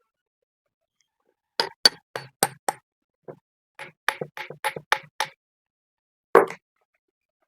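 A run of sharp clicks and knocks from hand work on a pump: a quick burst of about five, a second burst of about seven, then one louder knock near the end.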